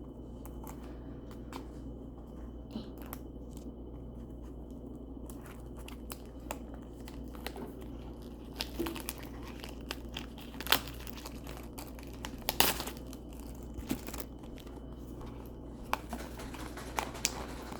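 Packaging of a stretchy noodle fidget toy being torn and unwrapped by hand: scattered crackles, with a few louder snaps past the middle.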